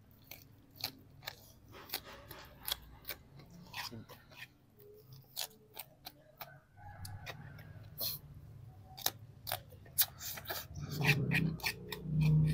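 Close-up eating sounds: a person chewing a handful of rice, grilled tilapia and pako (edible fern), with irregular wet lip smacks and crunchy clicks. Near the end come a couple of low hums from the eater.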